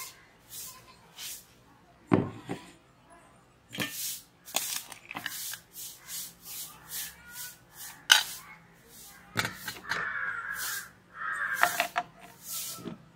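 Steel spoon scraping and tapping as sugar powder is scooped from a steel bowl into a plastic blender jar, then the rest tipped in from the bowl, giving scattered light clicks and knocks. Near the end the blender jar's plastic lid is fitted on.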